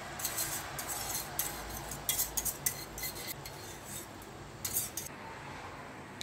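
Wire whisk scraping and clinking against the inside of a stainless steel saucepan as thick pudding is scraped out, in a run of irregular quick scrapes that stop about five seconds in.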